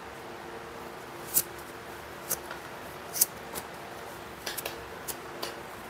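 A plastic glue spreader being wiped clean with a tissue: a handful of short, crisp rustles and clicks, over a faint steady hum.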